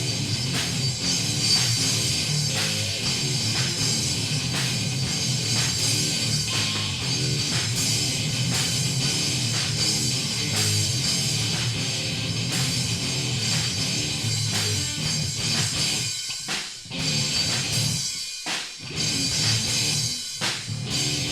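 Live rock band playing an instrumental passage with drum kit and guitar, without vocals; the sound breaks off briefly three times near the end.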